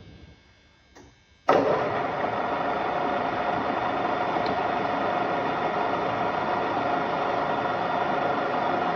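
MAS VR8A radial arm drill's 7.5 kW main drive switching on abruptly about a second and a half in, after a faint click, then running steadily with a constant whine over the machine's mechanical hum.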